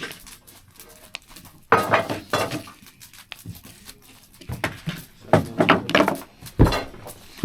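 Knife and fork clinking and scraping on a plate as a steak is cut into, in a few short clusters of sharp clatter.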